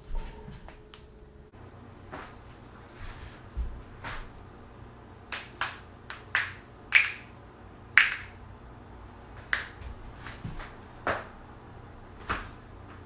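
A run of sharp joint cracks and pops, about fifteen of them at uneven intervals, the loudest two near the middle.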